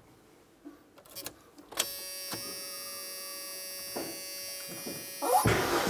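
A couple of clicks, then a steady electric buzz-whine typical of the Ford F-150's in-tank electric fuel pump running with the key on, after the selector is switched to the rear tank. Near the end the truck's engine cranks and catches, much louder.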